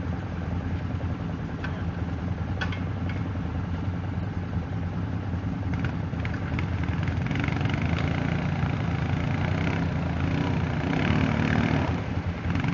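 ATV engine running steadily at low revs, growing somewhat louder about halfway through.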